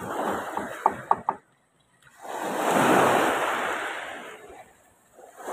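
Small waves washing up on the shore: a surge of surf noise swells about two seconds in and fades away, after a first second of lapping water with a few short clicks.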